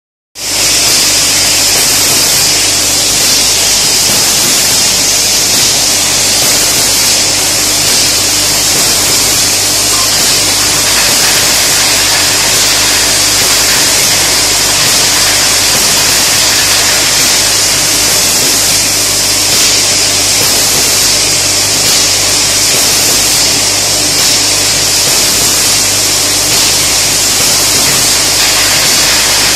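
Bottle elevator and belt conveyor running: a loud, even hiss with a steady low hum underneath.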